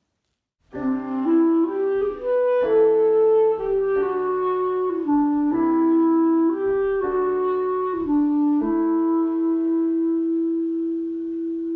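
Closing music: a slow melody of held notes in a reedy, woodwind-like tone, ending on one long sustained note. It comes in just under a second in.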